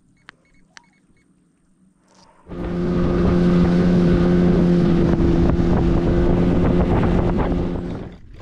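A small fishing boat's motor runs with a steady hum. It switches on abruptly about two and a half seconds in and fades off just before the end. Two faint clicks come before it.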